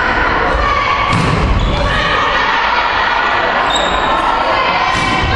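A volleyball being hit during a rally in an echoing sports hall, with hits about a second in and near the end, over steady voices of players and spectators.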